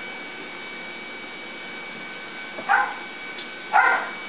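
A dog barks twice, two short sharp barks about a second apart, over a steady electrical hum.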